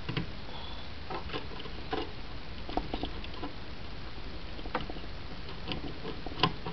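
Scattered light clicks and scrapes, about a dozen, irregularly spaced, as fingers work the metal mounting hardware on a CPU cooler's bracket.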